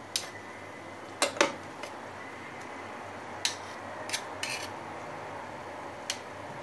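Two metal spoons clinking as whipped cream is scraped off one with the other onto biscuits in a glass baking dish: several sharp, scattered clicks, two in quick succession a little over a second in.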